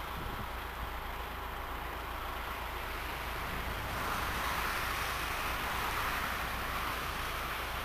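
Steady rush of motorway traffic, mostly tyre noise on the autobahn, swelling slightly about four seconds in as vehicles pass close.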